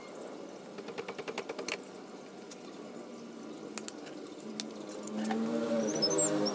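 Rapid run of sharp metallic clicks, about ten a second for under a second, then scattered single clicks and knocks as a rear shock absorber and its mounting hardware are handled on a scooter. Toward the end a louder wavering pitched sound comes up, with high bird chirps over it.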